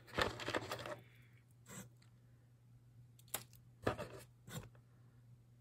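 Costume jewelry being handled: a second of rustling and scraping, then a few sharp little clicks as small metal pieces are picked up and set down.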